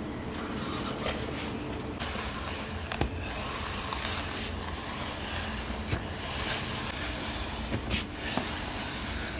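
Plastic cling film being pulled off a roll and stretched around hard-shell suitcases: a steady rustling hiss starting about two seconds in, with a few sharp clicks, over a low steady rumble.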